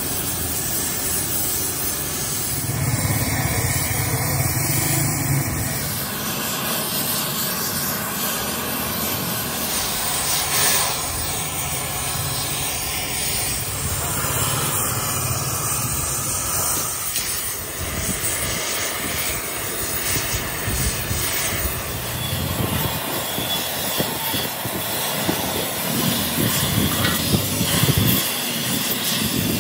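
Gas welding torch flame hissing steadily as it heats and welds a crack in a tractor engine block.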